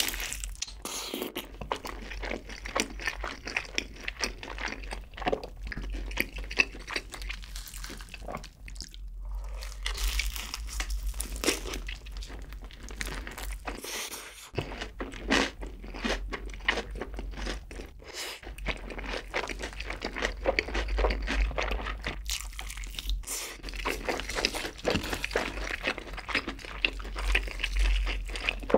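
Close-miked biting, crunching and chewing of a crispy Bburinkle seasoned fried chicken drumstick, with a dense run of crisp crackles throughout.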